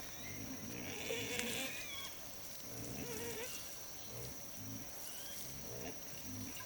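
A few short, wavering calls from farm animals, about a second in and again near three seconds, over a steady high-pitched tone.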